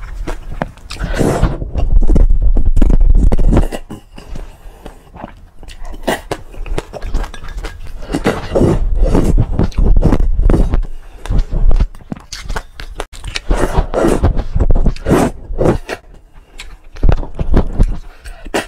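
Close-up eating of mixed seeds: crunchy chewing with many small crackles and clicks, and a spatula scraping seeds around a ceramic bowl, in loud stretches broken by quieter pauses.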